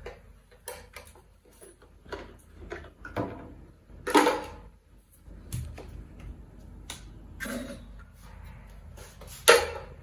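Irregular plastic clicks, taps and knocks from a toddler's ride-on toy car as its seat lid and storage compartment are handled, with a louder knock about four seconds in and another near the end.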